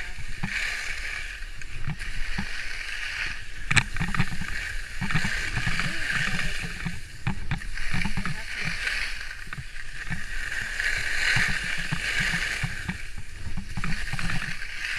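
Skis scraping and hissing over packed snow on a downhill run, the hiss swelling and fading with each turn, over an uneven low rumble of wind on the microphone. A sharp click about four seconds in.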